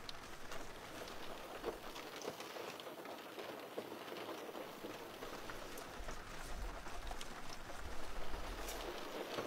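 Steady rain falling, a dense spatter of small drop ticks over a continuous hiss, with a low rumble swelling from about six seconds in.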